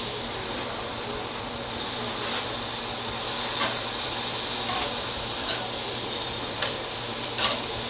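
Thin-sliced ribeye beef sizzling steadily on a hot ridged grill pan, with a few light clicks of tongs against the pan.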